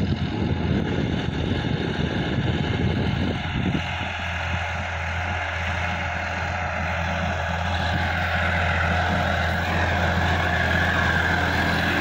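Sonalika DI-50 RX tractor's diesel engine running steadily under load as it pulls a rotary tiller through the soil. The hum grows louder over the last few seconds as the tractor comes close.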